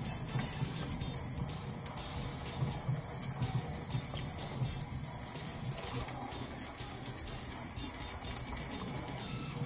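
Steady sizzling hiss with faint crackles from chicken wings cooking in a vertical rotisserie oven's wire basket.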